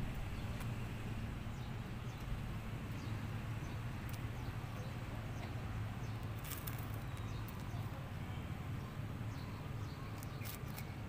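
Outdoor ambience: a steady low hum with faint bird chirps and a few sharp clicks, one about six and a half seconds in and another near the end.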